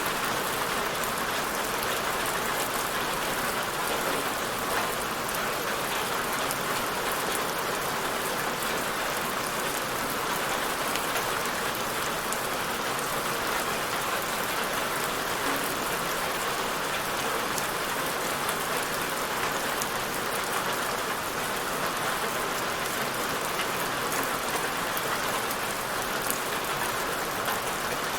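Steady rain falling, an even hiss of drops on a surface with fine patter of individual drops, unchanging throughout.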